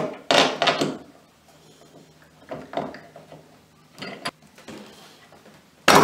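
Steel lag bolts scraping and clicking inside a faucet valve body as pieces of a broken Moen 1248 plastic cartridge are worked loose, in several short bursts, the sharpest near the end.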